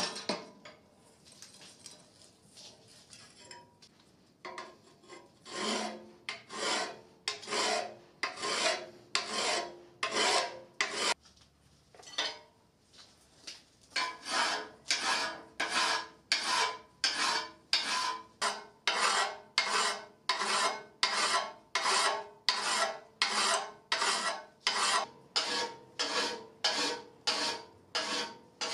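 Hand file rasping across the edge of a steel pendant blank clamped in a vise, in regular back-and-forth strokes, about three every two seconds. The steel rings faintly with each stroke. The strokes start a few seconds in and stop for a couple of seconds near the middle.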